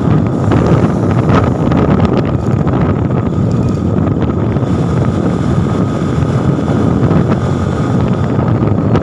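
A Bajaj Pulsar NS200's single-cylinder engine and exhaust running steadily on the move, with wind rushing over the microphone.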